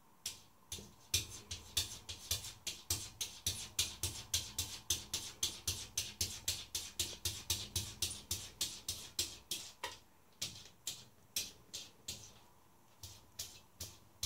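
Exotic shorthair cat scratching and pawing at the frosted glass pane of a door in quick, even strokes, about four a second. The strokes stop for a couple of seconds about ten seconds in, then start again near the end.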